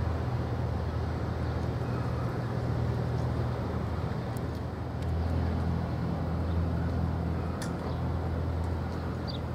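Steady low droning rumble of a large container ship's engine carried across the water, swelling a little about halfway through, over a soft noise haze, with a few faint high clicks.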